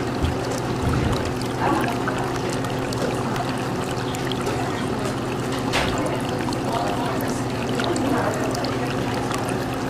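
Water trickling and bubbling in an aquarium tank, with many small clicks, over a steady low hum.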